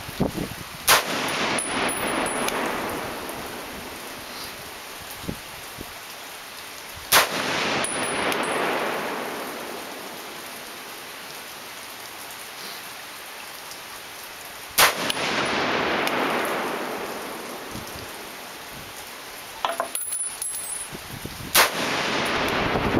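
M1 Garand rifle in .30-06 fired four times with reduced-power economy loads, a shot about every seven seconds. Each sharp report is followed by a long rolling echo.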